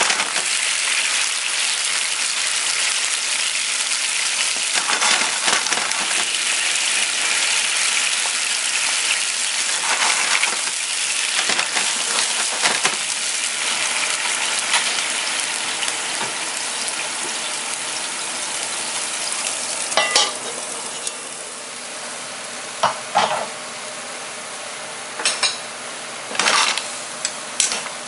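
Asari clams sizzling in white wine and olive oil in a frying pan, a steady loud hiss of bubbling liquid. About twenty seconds in, the sizzle drops to a quieter simmer, and a few sharp clicks and clinks of shells or the pan follow.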